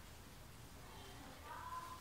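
Near silence: quiet room tone with a low hum, and a faint, brief pitched sound near the end.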